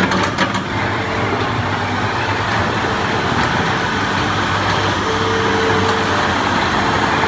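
IHI 45J mini excavator's diesel engine running steadily while the machine swings and lowers its boom. There are a few clanks in the first half second and a brief higher tone about five seconds in.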